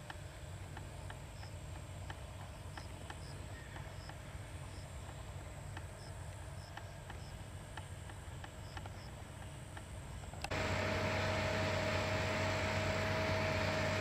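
New Holland FR9090 self-propelled forage harvester (825 hp) chopping maize with tractors and trailers working alongside: a distant, steady low rumble with faint regular ticks. About ten seconds in the sound jumps to the harvester up close, a much louder steady drone with a high steady whine over it.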